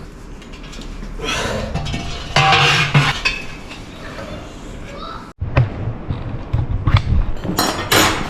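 Handling noise: irregular metallic clinks and clatter, then a run of low knocks and thumps after a sudden brief cut-out about five seconds in.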